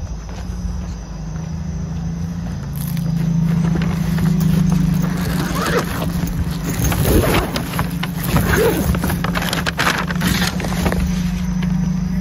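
Car driving, heard from inside the cabin: a steady low drone of engine and road noise. Faint voices from a football broadcast come and go in the middle.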